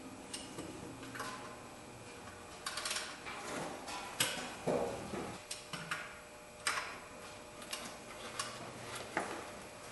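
Half-inch ratchet clicking and clinking against the serpentine belt tensioner as it is fitted into the tensioner's square drive slot and worked to release the belt tension. About ten sharp metal clicks, irregularly spaced, roughly one a second.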